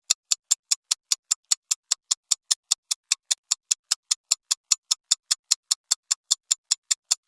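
Quiz countdown timer sound effect: an even run of sharp, high ticks, a little over four a second, counting down the answer time.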